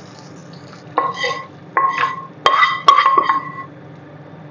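Metal utensil knocking against a stainless steel cooking pot: four ringing clinks in quick succession, the last two the loudest, as the tadka pan is tapped empty over the daal. A faint sizzle from the hot butter tadka on the daal fades in the first moment.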